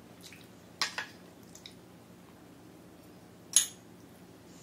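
Metal chopsticks clicking against dishes: a few light taps, two close together about a second in and a sharper, louder click near the end as the chopsticks hit the small sauce bowl.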